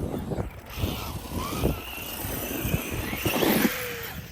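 Radio-controlled monster truck driving, its electric motor giving a faint whine that rises and holds through the middle, over a bed of noise and low knocks.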